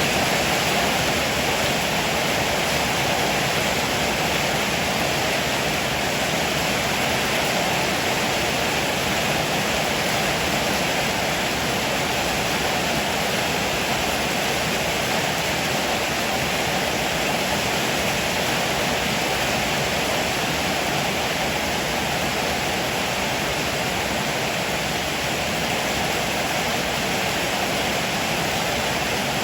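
Heavy rain pouring down in a steady, even hiss, with no thunder claps and no change in strength.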